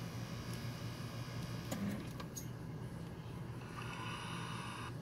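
A steady low mechanical hum with a few faint clicks around the middle, and a short burst of hiss about a second long near the end.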